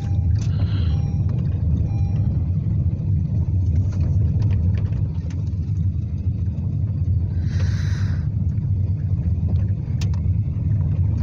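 Steady low rumble of road and engine noise inside a moving car's cabin, with a brief rush of noise about eight seconds in.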